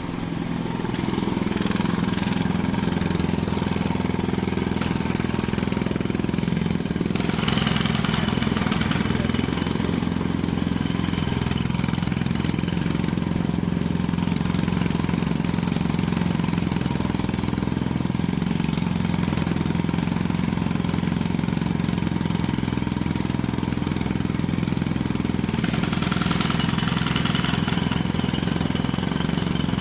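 Jackhammer hammering without a break, a rapid run of blows. The sound turns brighter and harsher about seven seconds in for a couple of seconds, and again near the end.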